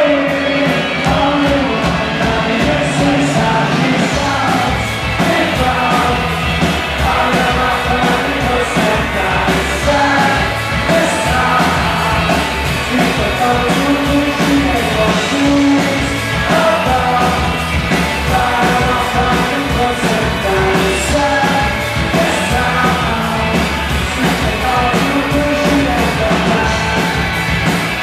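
Rock band playing live in a hall: electric guitar, bass and a steady drum beat, with a male lead vocal singing.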